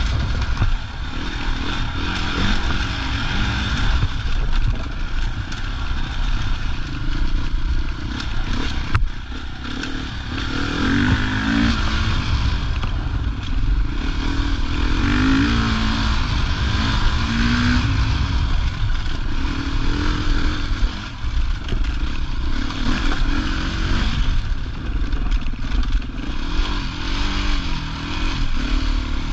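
Enduro motorcycle engine running under load and revving up and down as the bike is ridden along a gravel dirt track, heard from on board with wind noise and the clatter of the bike over rough ground.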